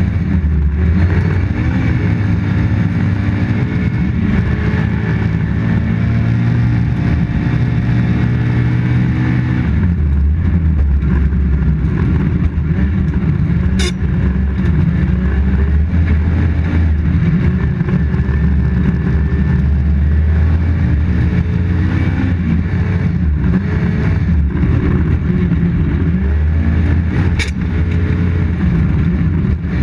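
Toyota Corolla GT rally car's engine at full throttle heard inside the cabin, its pitch climbing and dropping back at each gear change, over steady tyre and road noise. Two sharp clicks, one about halfway and one near the end.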